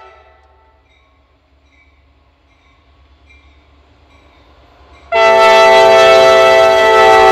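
Locomotive air horn of a Norfolk Southern SD40E sounding for a grade crossing. A faint horn chord fades away in the first second, then about five seconds in the horn comes on suddenly and very loud as a steady multi-note chord that is still sounding at the end.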